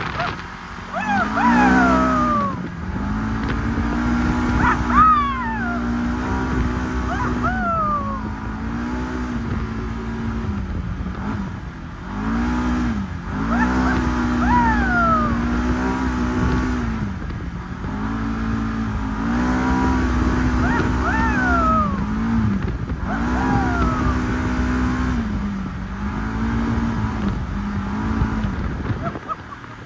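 Segway 1000 UTV engine revving up and easing off over and over as it is driven, each rise followed by a high whine falling in pitch.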